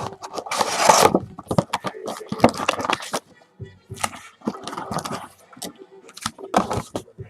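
Panini 2014 World Cup sticker packets and their cardboard box being handled and torn open: irregular crackling and ripping, loudest about a second in.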